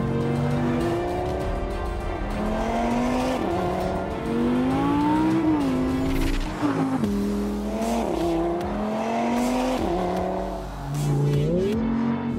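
Audi R8 Spyder's naturally aspirated 5.2-litre V10 engine accelerating hard, its pitch climbing and dropping back several times as it shifts up through the gears.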